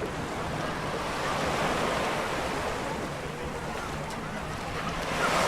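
Surf breaking and washing up on a sandy beach, as a steady rushing that swells about two seconds in and again near the end. Wind is on the microphone.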